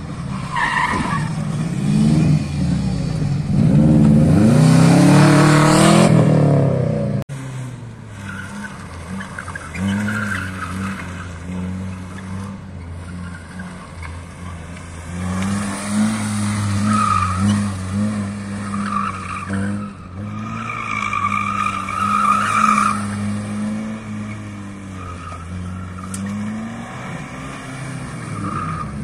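Competition cars at full throttle through a slalom. For the first seven seconds a Subaru Impreza rally car is revved hard up and down with its tyres skidding, the loudest part. Then a Citroën Saxo's engine revs and lifts between gates, its tyres squealing in places.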